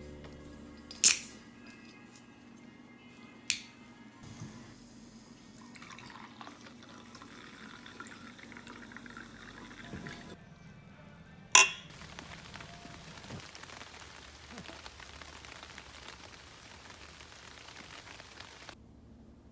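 Three sharp clinks or knocks, about one second in, three and a half seconds in and near the middle, over a soft trickling of liquid, like something being poured. Fading music ends the first moment.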